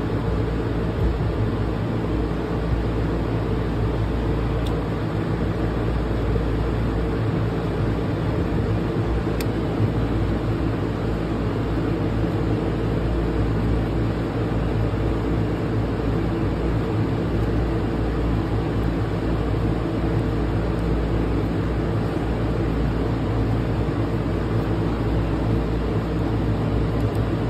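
A steady mechanical hum over a constant hiss, unchanging in level and pitch.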